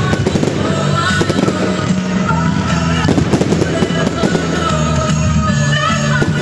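Aerial fireworks bursting and crackling in quick, irregular succession over loud accompanying music with sustained notes.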